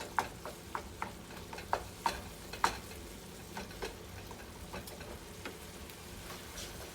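Kimchi and meat frying in a pan as they are stirred, with a steady sizzle. A utensil knocks and scrapes against the pan in irregular clicks, most often in the first three seconds.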